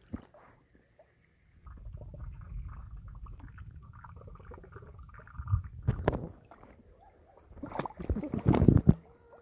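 Muffled underwater sound from a camera held below a swimming pool's surface: a steady low rumble and gurgle of water. It is broken by a few sharp sloshes, then loud splashing near the end as the camera comes up against a swimming puppy.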